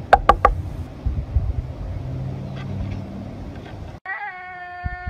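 Three quick high-pitched cries at the very start, over low rumbling microphone noise. About four seconds in, a goat lets out one long, steady bleat that sinks slightly in pitch.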